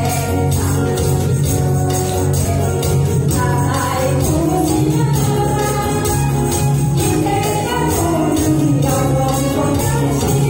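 An upbeat pop song playing from a backing track, with a woman singing the melody into a microphone and hand tambourines jingling along on the beat.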